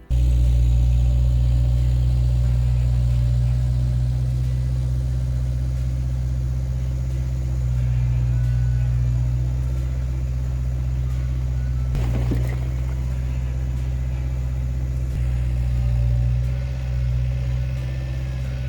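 Bobcat S130 skid steer loader's diesel engine running steadily at close range, a deep even rumble, with a brief higher-pitched sweep about twelve seconds in.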